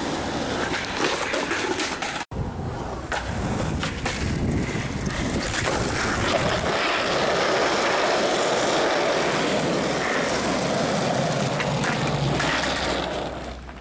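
Skateboard wheels rolling over pavement, a steady rumbling roll with a few sharp clacks of the board, and wind on the microphone. The sound breaks off for an instant about two seconds in and then resumes.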